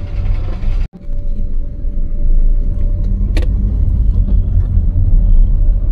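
Tata Tiago hatchback running, a deep steady rumble of engine and road noise heard from inside the cabin. It drops out for an instant about a second in, and there is a single sharp click a little past three seconds.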